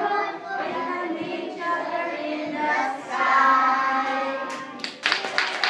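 A group of young children singing a song together. The singing stops about five seconds in, and clapping and applause start.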